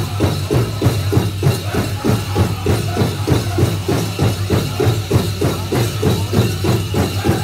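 Powwow drum group playing a chicken dance song, the big drum struck in a fast, even beat of about four strokes a second, with the dancers' bells jingling along.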